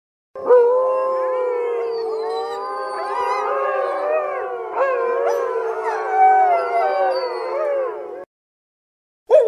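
A pack of wolves howling together, many voices overlapping with long gliding howls; it starts about half a second in and stops abruptly about a second before the end, when another howl begins.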